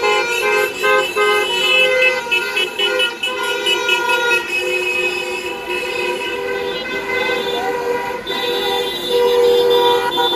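Many car horns honking at once in a slow convoy of cars, long held blasts overlapping with short repeated toots: a victory horn-honking procession.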